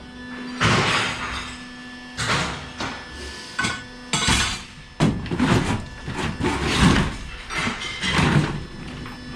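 Scrap metal clanging and clattering as pieces are thrown down and handled, a string of irregular impacts with a busy run of them in the second half.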